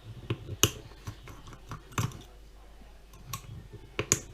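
Scattered sharp clicks and taps of small hard parts being handled and pushed together: RC model trailer wheels and hubs being fitted.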